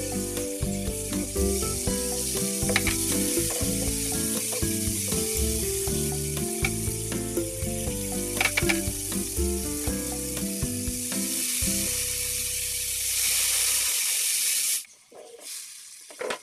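Masala and chicken sizzling as they fry in oil in a wok, with scattered clicks of a wooden spatula stirring against the pan. Background music with a melody runs underneath. Near the end the sizzling cuts off abruptly and a single knock follows.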